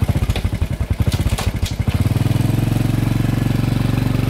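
A small engine running close by, its beat quickening over the first two seconds with a few sharp clatters, then running fast and steady.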